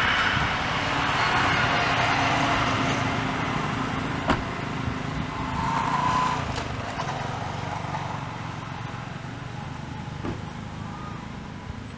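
Outdoor background noise: a steady low rumble with a hiss, like vehicle traffic, louder in the first few seconds and slowly fading, with one sharp click about four seconds in.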